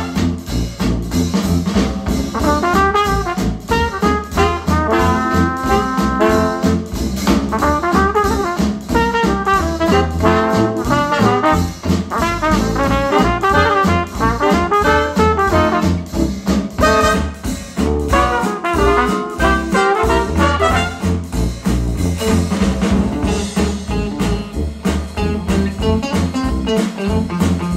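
Traditional jazz with trumpet and trombone, played back through Q Acoustics 3030i bookshelf speakers. About two-thirds of the way in, the same passage switches to Polk Audio Reserve R200 bookshelf speakers for comparison.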